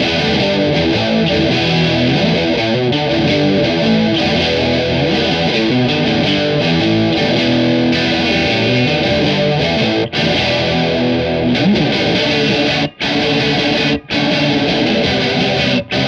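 Electric guitar, a Fender Jaguar on its bridge pickup, playing a distorted riff through a Drunk Beaver JellyFish chorus (a Small Clone–style MN3007 bucket-brigade chorus) into a Dead Pedals overdrive. The playing breaks off briefly about ten, thirteen and fourteen seconds in.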